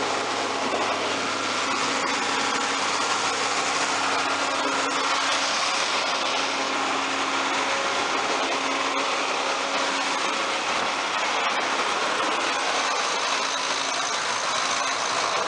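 John Deere 4450 tractor's six-cylinder turbo-diesel running steadily at raised throttle, driving a forage wagon's unloader through the PTO shaft.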